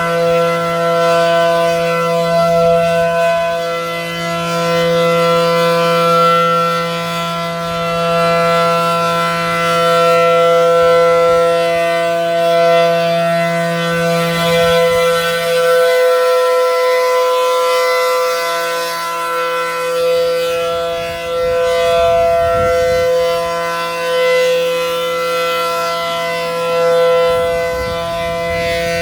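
ACA Allertor 125 electromechanical outdoor warning siren sounding a steady alert tone: a held chord at one pitch that swells and fades in loudness every few seconds as the rotating head sweeps past.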